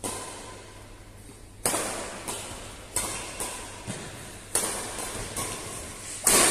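Badminton rackets striking a shuttlecock in a fast doubles rally: a string of sharp pocks every half-second to second, ringing in a large hall, with the loudest hit, a jump smash, near the end.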